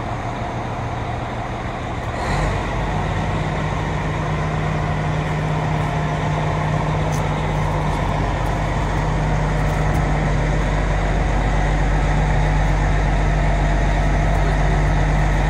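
Detroit Diesel Series 60 engine of an MCI D4000 coach idling just after starting, a steady low diesel hum that steps up a little about two seconds in and then holds.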